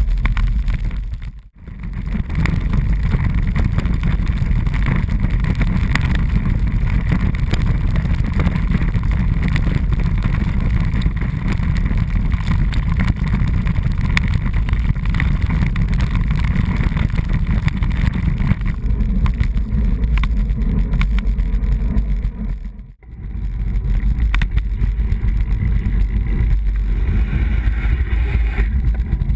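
Wind buffeting and road rumble on a bicycle-mounted action camera, rolling over cobblestones and then smooth road: a loud, steady low rumble that cuts out briefly twice, about a second and a half in and again about twenty-three seconds in.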